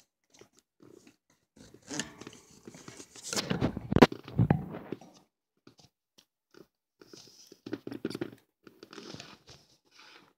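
Pet mice rustling and nibbling in wood-shaving bedding inside a plastic hideout: irregular crackling and crunching, loudest about four seconds in, with another spell around eight seconds.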